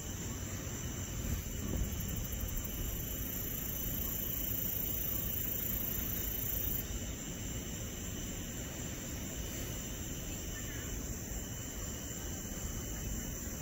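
Crickets trilling steadily in the night air, with a higher, brighter insect band from about a second in until about halfway through, over a low background rumble.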